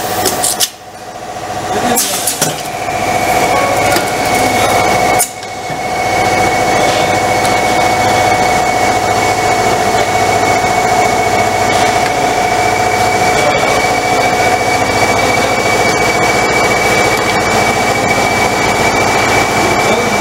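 Manual tray sealing and cutting machine running with a steady hum, a thin high whine joining about two seconds in. A couple of sharp clicks near the start.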